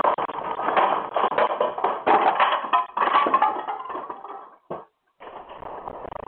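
Household objects rattling and clattering continuously as an earthquake shakes the building, with a brief drop-out about five seconds in.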